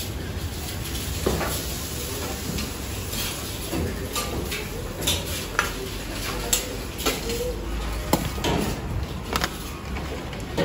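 Eatery ambience: scattered clinks of plates and cutlery over a steady low background noise, with faint voices.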